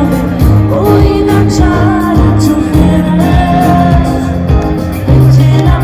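Live band playing loudly through a concert PA, with a singer's voice over sustained bass and chords and a steady drum beat.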